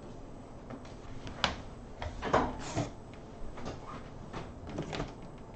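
A scatter of short knocks and clicks, irregularly spaced with the loudest near the middle, as a person gets up from a wooden chair and moves about. These are handling noises, not speech.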